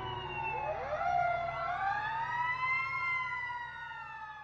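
Fire truck siren wailing: its pitch climbs over about two seconds to a peak, then slowly falls as the sound fades out.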